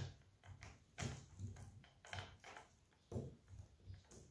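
Faint, scattered clicks and light knocks, about six of them, from the bar and chain of a cordless Makita chainsaw being handled and fitted back together.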